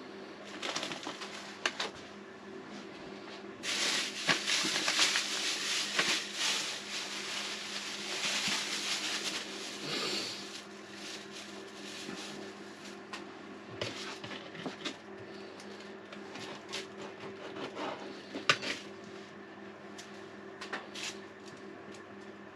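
Steady hum of an electric cooking appliance's fan running. A loud rush of noise lasts about six seconds from about four seconds in, and scattered light clicks and knocks run throughout.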